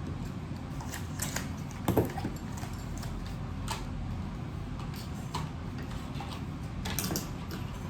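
Scattered light clicks and taps from small repair tools and phone parts being handled, the loudest about two seconds in, over a low steady hum.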